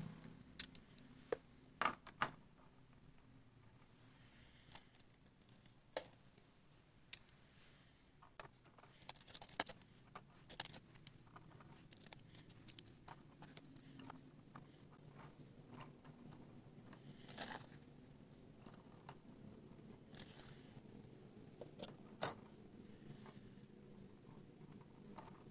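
Metal coins clicking and clinking against one another as they are set by hand onto coin stacks. The clicks are sharp and come at irregular intervals, with short pauses between them.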